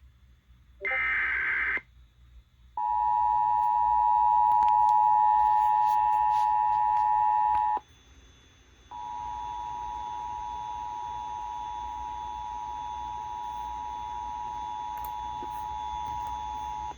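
Emergency Alert System tones: a one-second warbling digital data burst (the end of the SAME header), then the two-tone EAS attention signal, two steady pitches near 853 and 960 Hz, for about five seconds. After a one-second break the attention tone sounds again, quieter, to the end, with a low hum underneath.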